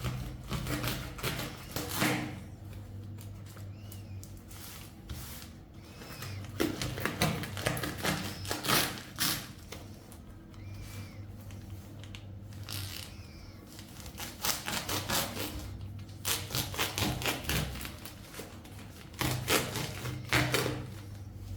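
Irregular clusters of clicking, tapping and rustling, like objects and packaging being handled, with quieter stretches between them, over a steady low hum.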